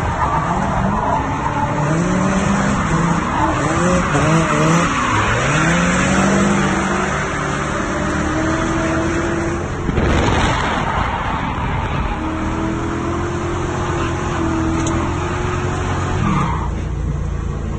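Drift car's engine revving up and down hard while the tires skid and squeal, with a brief loud burst about ten seconds in.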